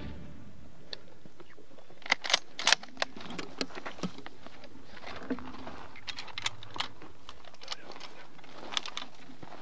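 Hunters' footsteps through dry grass and sand, with gear and rifles rattling: scattered small clicks and knocks, the loudest few sharp clicks about two to three seconds in.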